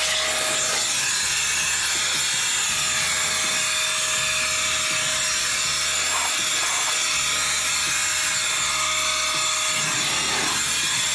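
ICANZUO TAD06 cordless battery air duster running continuously, blowing dust off a car's dashboard and door panel. It gives a steady rushing hiss of air with a constant whine from its motor and fan.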